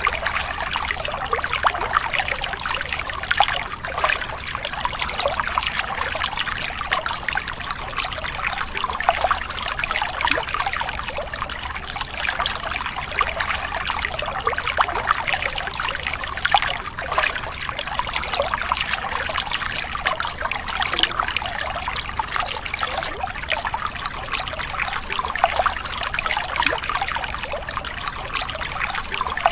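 Water running from a thin plastic hose, trickling and splashing steadily onto muddy plastic toy vehicles and wet concrete.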